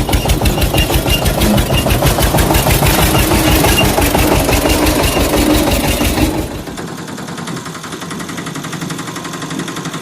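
An engine running with a rapid, even chugging beat, which drops to a lower level about six seconds in and keeps running more quietly.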